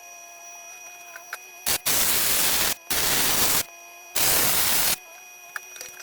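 MIG welder laying tack welds: three bursts of steady arc hiss and crackle, each just under a second, that start and stop abruptly, with a short blip just before the first. Between the tacks a faint steady hum.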